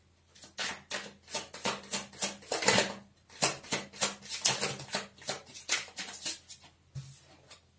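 Tarot cards being shuffled by hand: a run of quick, irregular card slaps and flicks that stops about seven seconds in.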